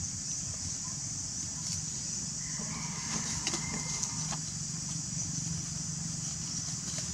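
Steady high insect drone with a continuous low rumble underneath. A few faint clicks and a short, faint high note come about three seconds in.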